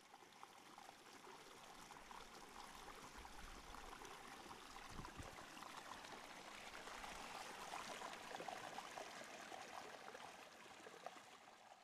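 Faint running water of a stream, a steady flecked rushing that fades in, swells through the middle and fades out near the end.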